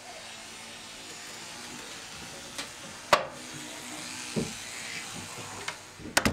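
Small handheld electric grooming appliance buzzing steadily. A sharp click comes about halfway through, and a few quick clicks near the end.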